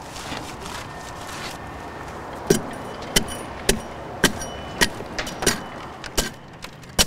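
Sharp, ringing blows of a mallet on a steel carving chisel cutting into an oak trunk, about two a second, starting a couple of seconds in.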